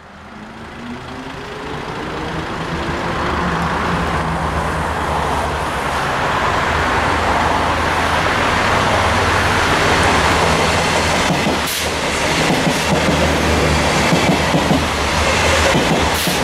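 X72500 diesel railcar approaching and passing close by, its engines giving a steady low drone that grows louder over the first few seconds as it nears. A few sharp clicks from the wheels come in the second half.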